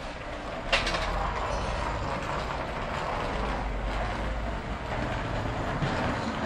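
Busy street noise with a low engine rumble from passing traffic, and one sharp clack about a second in.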